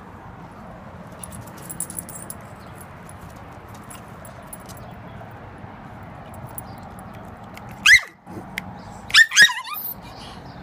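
A chihuahua barking in high-pitched yaps: one sharp yap about eight seconds in, then two quick ones a second later, over a steady background hiss.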